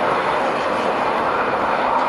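Jet airliner engines running, a loud steady rush of noise that holds at one level throughout.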